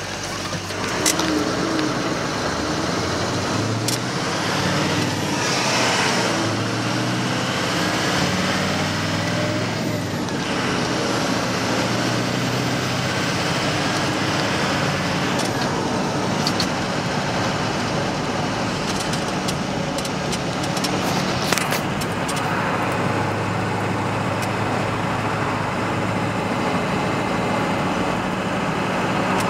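Road and engine noise inside a moving car's cabin: a steady hum with tyre noise, broken by a few sharp clicks.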